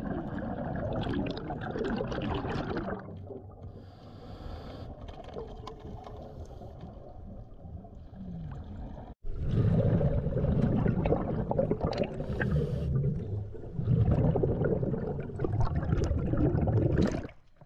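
Scuba divers' regulator exhaust heard underwater: exhaled air bubbling out in long, loud, rumbling bursts a few seconds apart, with water noise in between.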